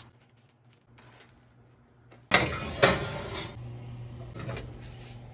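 A knife scraping garlic spread across a split bread roll. After a near-silent start, a rough scraping noise begins suddenly about two seconds in, is loudest for about a second, then carries on more softly.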